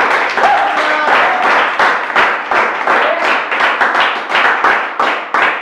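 Audience clapping, a quick irregular patter of many hands, with a few voices calling out over it.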